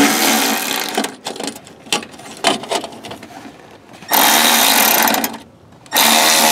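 Milwaukee cordless ratchet running in short bursts while it drives fasteners down: a run that dies away in the first second, a few clicks, then two more runs from about four and six seconds in.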